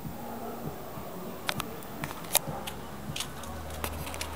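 A handful of sharp clicks and light knocks, the loudest about two seconds in, like handling of the camera. A faint steady low hum comes in about halfway through.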